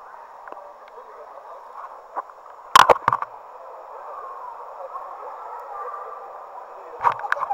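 Steady, muffled background hubbub of an indoor swimming-pool hall. A cluster of sharp knocks about three seconds in and again near the end comes from the camera being handled and set on the tiled pool deck.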